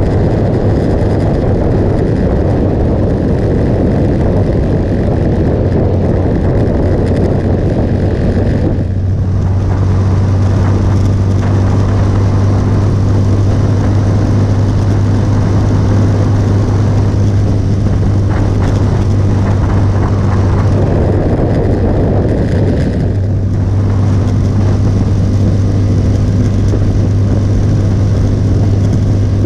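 Motorcycle engine running steadily at cruising speed, with wind rushing over the microphone. The wind noise eases briefly twice, about nine seconds in and again a little past twenty seconds.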